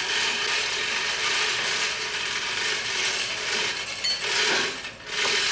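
Rapid ratcheting mechanical rasp from hand work on a change-ringing bell's metal fittings. It runs on, dips briefly near the end, then starts again.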